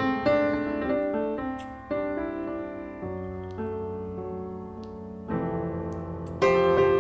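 Background piano music, new notes and chords coming in about once a second.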